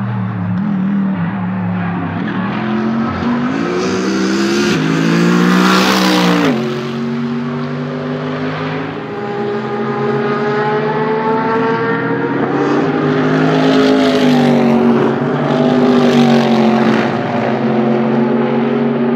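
Mercedes-AMG GT3 race cars' V8 engines at full throttle on a circuit. The pitch climbs to a peak about six seconds in and drops sharply, then the engine note holds, rises and falls again through the rest.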